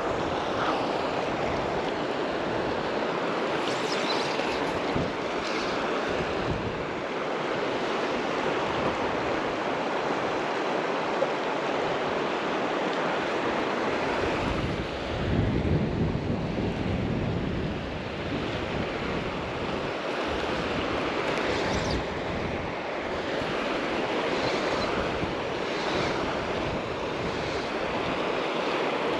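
Steady rush of river water, with wind buffeting the microphone and a stronger gust about halfway through.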